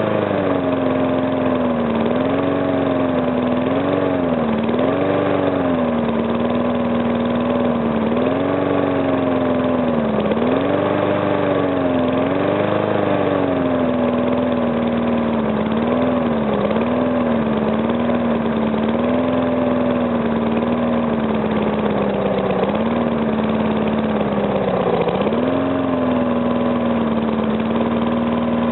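Small single-cylinder Briggs & Stratton engine running just after a rebuild, its speed wavering up and down every second or two. Little knocking is heard; the earlier knock came from compression leaking past the piston and was cured by rearranging the piston rings.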